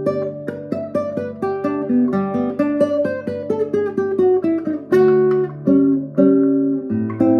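Classical guitar playing a lively choro: quick plucked melody notes over ringing bass notes. A descending run of notes comes through the middle, then accented plucked chords about five seconds in.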